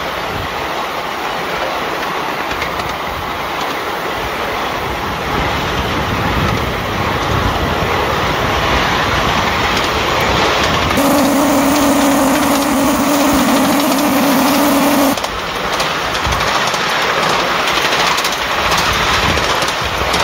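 A 5-inch gauge miniature steam locomotive running along the track, heard from the riding truck behind it as a steady rolling and running noise. About halfway through, a steady whistle tone sounds over it for about four seconds and then cuts off.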